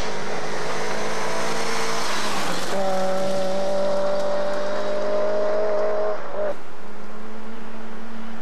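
Rally car engine pulling hard on a gravel stage. The note breaks briefly about two and a half seconds in, then climbs slowly and cuts off sharply about six and a half seconds in as the throttle is lifted.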